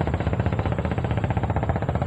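A small engine running steadily with a rapid, even pulse, and a faint high steady tone above it.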